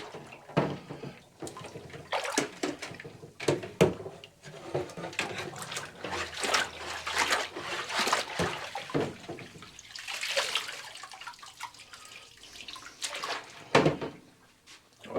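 Electronic air cleaner filters being sloshed back and forth in a bathtub of dirty soaking water: repeated irregular splashes and sloshing with occasional knocks of the filters against the tub.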